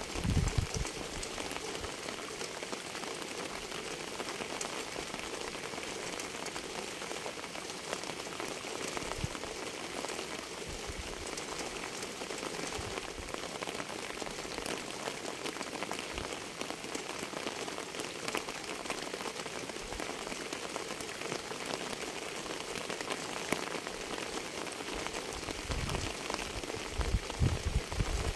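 Steady rain falling on a surface, a dense patter of individual drops over an even hiss. Brief low rumbles come just after the start and again near the end.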